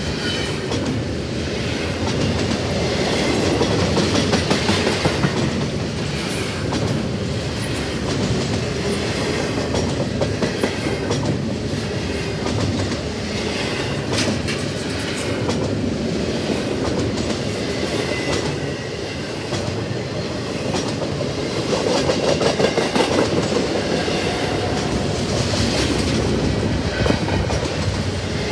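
Freight train cars rolling steadily past, steel wheels clickety-clacking over the rail joints in a continuous rhythm.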